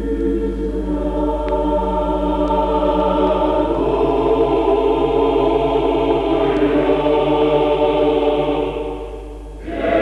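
Soundtrack music of sustained, held chords that fade out near the end, with a new chord swelling in just before it ends, over a steady low hum.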